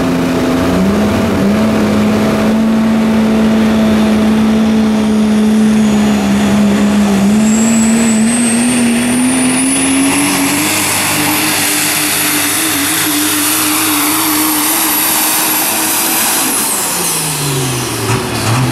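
Super stock diesel Dodge Ram pulling truck at full throttle under the load of a pulling sled. The engine's drone climbs slowly in pitch while a high turbocharger whistle rises and then holds, and both fall away near the end.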